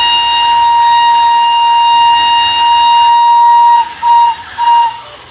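Steam locomotive whistle sounding one long steady blast that ends a little under four seconds in, followed by two short toots of the same pitch.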